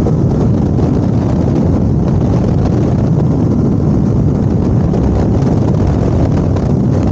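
Steady wind rush on a helmet-mounted microphone while a Yamaha R15 motorcycle cruises at an even speed, with its single-cylinder engine running underneath.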